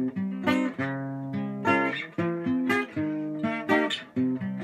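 Acoustic guitar playing a picked chord pattern, each chord struck and left ringing, with a new attack roughly twice a second.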